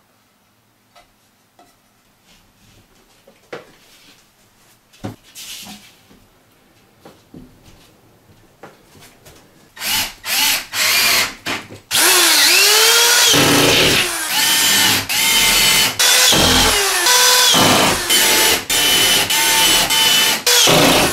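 Light knocks and scuffs as the cement board is positioned, then about ten seconds in a power drill starts driving screws through HardieBacker cement board into the wooden studs. The drill runs in loud stretches with brief pauses between screws, its motor pitch rising and falling.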